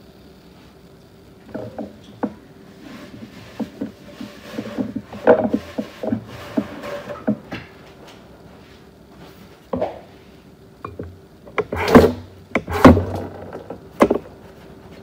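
Irregular knocks, clunks and rattles of things being handled, ending in two loud thuds near the end, over a faint steady hum.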